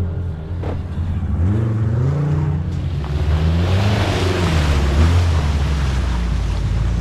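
Off-road 4x4 engine revving, its pitch rising and falling, then wheels churning through muddy water with a rush of splashing about three seconds in, over the engine's steady low drone.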